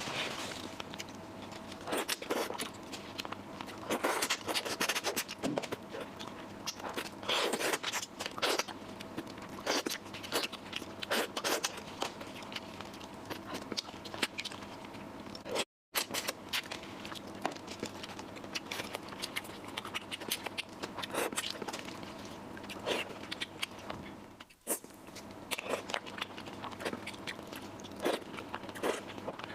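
Close-miked eating sounds: a person chewing and biting food, with many irregular wet clicks and small crunches, broken by a split-second gap about halfway through.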